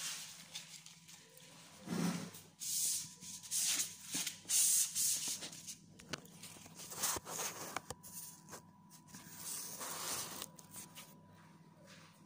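Handling noise from fingers rubbing and sliding over a phone as it is adjusted and set down on a counter: irregular scraping rustles with a few light knocks.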